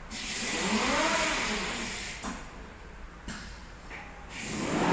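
Drive motors of a CNC glass cutting table whining up in pitch and back down as the gantry makes a move, over a steady hiss. A first move starts about half a second in and lasts about a second and a half; a second, louder one starts near the end.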